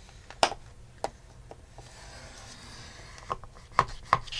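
Paper being positioned and scored on a scoring board: about five sharp taps and clicks, three of them close together near the end, with faint handling between.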